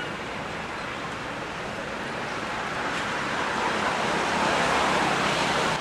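Steady rushing outdoor background noise in a forest, growing a little louder about three to five seconds in.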